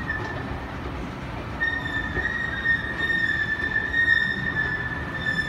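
A steady high-pitched squeal that swells about a second and a half in and holds, over a constant low rumbling background.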